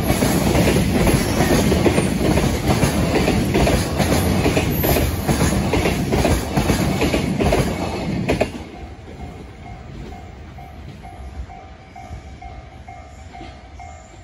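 Container freight train wagons rumbling and clattering over the rail joints at close range; the last wagon clears about eight and a half seconds in. After it, the level crossing alarm bell keeps ringing in a steady, repeated ding.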